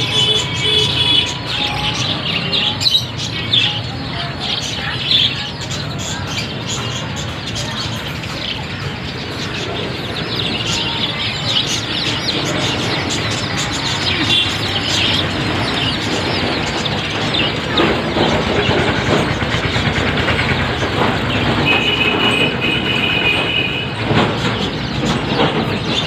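Many caged birds chirping and peeping over a steady background din, with a burst of dense chirps midway and a held, steady call for about two seconds near the end.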